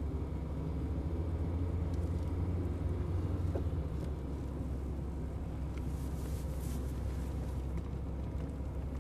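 Steady low drone of a car's engine and tyres on the road, heard from inside the cabin.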